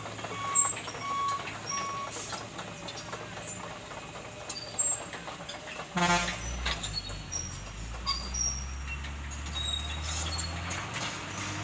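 A heavy vehicle's reversing alarm beeps about twice a second, stopping about two seconds in. About six seconds in a short horn toot sounds, and a heavy engine's low rumble then rises and carries on.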